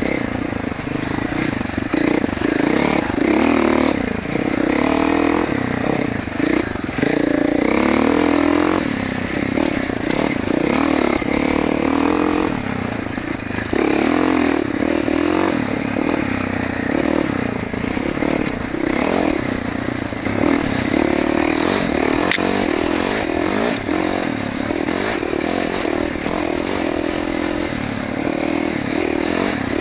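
2021 Gas Gas MC450F's 450cc single-cylinder four-stroke engine running under way, the revs rising and falling again and again with the throttle as the dirt bike is ridden.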